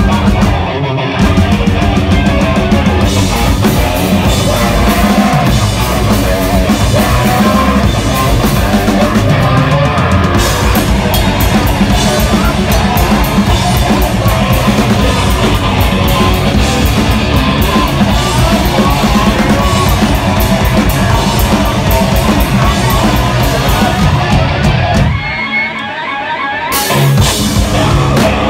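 Hardcore metal band playing live: heavy distorted guitars, bass and a drum kit with cymbals. Near the end the drums and bass drop out for about a second and a half, then the full band crashes back in.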